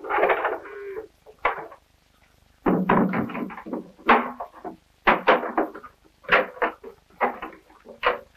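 Cooper's hand tools working oak barrel wood: a series of irregular rasping, scraping strokes, roughly one a second.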